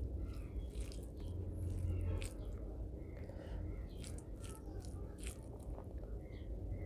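Close-miked fingers kneading rice with curry gravy, making soft wet squelches and scattered small clicks over a steady low hum.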